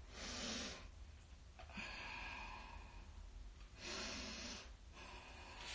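A woman's slow, audible breathing: three long breaths of hiss in and out, the last one the strongest, as part of a guided breathing exercise.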